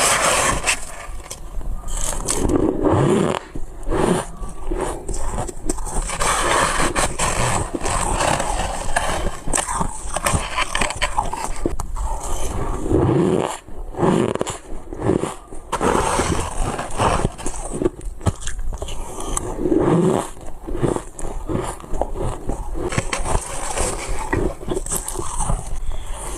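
Ice being crunched and chewed close to the microphone: a dense, irregular run of cracks and crunches with louder surges every second or two.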